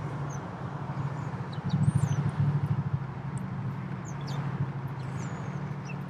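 A low steady hum that swells a little about two seconds in, with faint short chirps and thin whistles of small garden birds above it.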